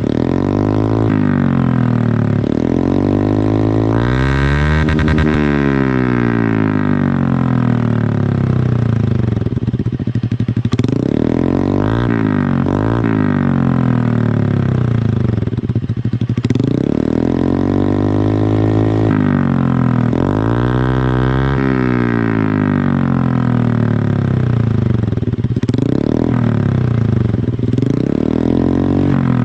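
Motorcycle engine revved repeatedly through an aftermarket samlong (drilled-baffle) exhaust, its pitch climbing and dropping back with each twist of the throttle.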